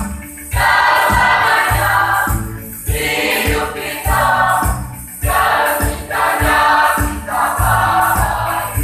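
A mixed youth choir singing, with sung phrases breaking briefly about every two and a half seconds over an electronic keyboard accompaniment with a steady beat.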